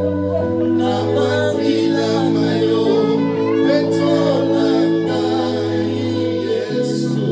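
Gospel worship music: voices singing over long held instrumental chords that change every second or two.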